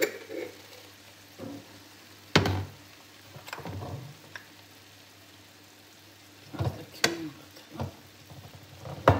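Ground beef and onions frying in a pan with a soft sizzle, broken by a few sharp knocks and clinks, the loudest about two, seven and nine seconds in, as glass spice jars are handled and spices are shaken in.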